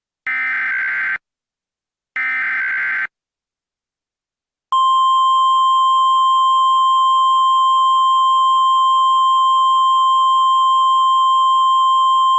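Emergency Alert System SAME digital data bursts: two screechy, warbling bursts just under a second each, about a second apart. About four and a half seconds in, the NOAA Weather Radio 1050 Hz alert tone starts and holds as one loud, steady tone, the signal that sets off weather radios ahead of the tornado warning.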